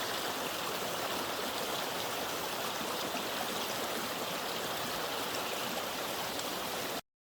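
Creek water running in a steady rush, cutting off abruptly about seven seconds in.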